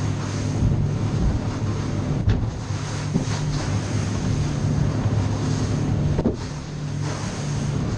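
Cobia 237 center-console boat running at speed through chop: a steady outboard engine drone under the rush of spray and wind buffeting the microphone. The noise eases briefly about six seconds in.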